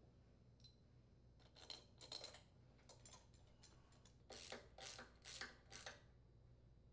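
Faint metal clicks and scrapes of cylinder-head mounting bolts being threaded in by hand on a small engine, in two short clusters, about a second and a half in and again from about four seconds in.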